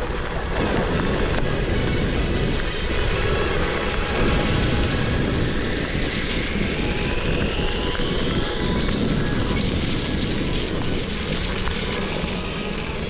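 One-wheeled electric board rolling fast down a wet gravel road: a steady rushing of tyre on gravel and wind on the microphone, with a high motor whine rising in pitch around the middle as the board picks up speed.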